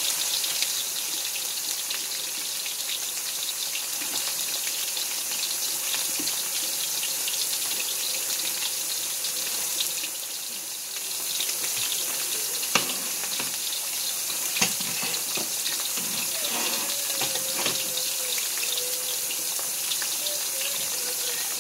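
Chicken breast strips frying in hot oil in a wok: a steady sizzling hiss with scattered small pops and a couple of sharper pops past the middle.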